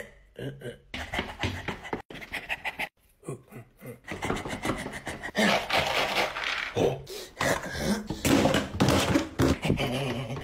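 Dry dog kibble being raked and scooped by hand in a plastic bucket: a few scattered knocks and rattles at first, then, from about halfway, a dense continuous rattling rustle of pellets.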